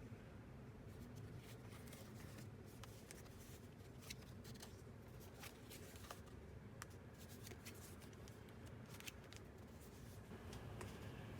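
Faint, scattered clicks and light rustles of hands handling packaging, over a low steady room hum.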